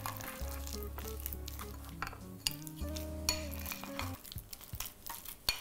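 Metal spoon stirring and scraping a thick sugar paste in a small glass bowl, with light clinks of the spoon against the glass. Soft background music with low notes plays under it, fading out about four seconds in.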